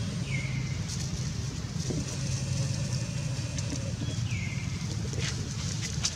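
Steady low rumble of a running engine, with dry leaves rustling and crackling now and then as baby macaques wrestle in the litter. Twice, about four seconds apart, there is a short high call that drops in pitch and then holds.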